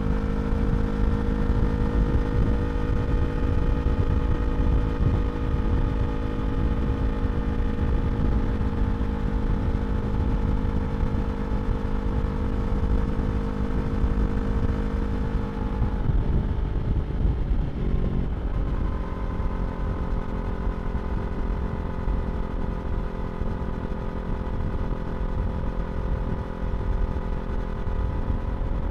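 Yamaha R3 parallel-twin engine with an Akrapovič slip-on exhaust, running at steady revs under way, with heavy wind noise on the microphone. About sixteen seconds in, the engine note breaks up for a couple of seconds, then settles again at a new steady pitch.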